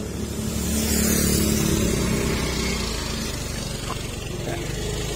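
Small motorbike engine running on the road, swelling to its loudest about a second in and then fading, as a motorbike passes close by.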